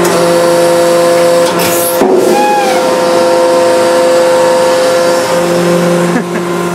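Hydraulic press running with a loud steady hum as its ram crushes an inflated spiked exercise ball. About two seconds in the ball's rubber gives a sharp snap and a short falling squeak as it buckles.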